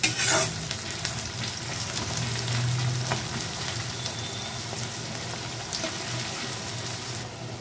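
Sliced onion sizzling steadily in hot oil in a kadai, fried lightly toward light brown. It is stirred, with a utensil knocking against the pan once or twice.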